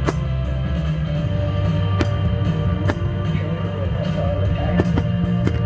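Rock music with guitar and drums playing loudly, with several sharp cracks of fireworks bursting at irregular intervals.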